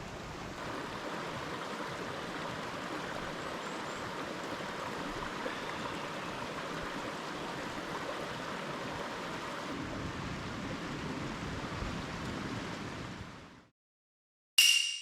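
Steady rushing noise, like running water or rain, that fades out near the end, followed by a short bright ringing chime just before the end.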